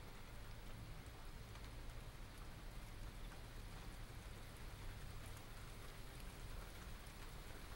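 Steady rain from a small thunderstorm, recorded binaurally: an even hiss with scattered ticks of individual drops, over a low steady rumble.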